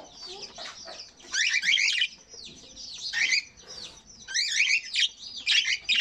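A flock of pet budgerigars and cockatiels chattering and chirping, a dense high warble that comes in loud bursts of a second or so, several times over.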